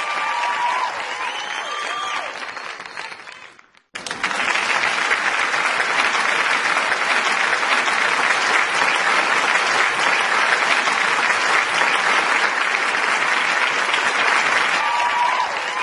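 Audience applauding, with a few cheers over it at first. The applause fades out just under four seconds in, then comes straight back louder and denser.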